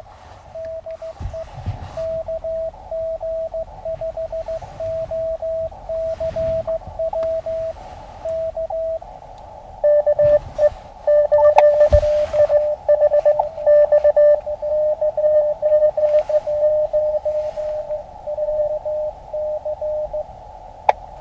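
Morse code from an Elecraft KX2 transceiver. For about the first nine seconds a clean keyed sidetone sends dots and dashes. Then the receiver opens to a narrow band of hiss, and another station's Morse comes back at a slightly lower pitch.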